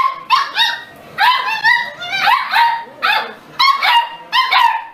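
Beagles barking in quick, high-pitched yaps, about a dozen of them in clusters, each one rising and then falling in pitch.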